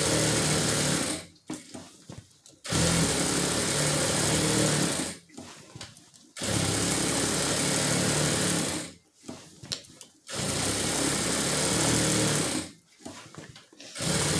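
Industrial sewing machine stitching through a thick crochet rug, running in repeated bursts of two to three seconds and stopping briefly between them, with a few light clicks in the pauses.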